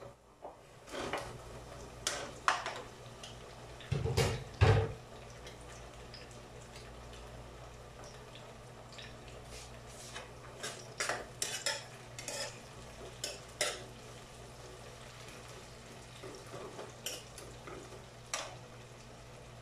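A metal ladle clinking, knocking and scraping against a non-stick frying pan as tomatoes are tipped in and stirred, in scattered strokes with the loudest knocks about four seconds in. A steady low hum runs underneath.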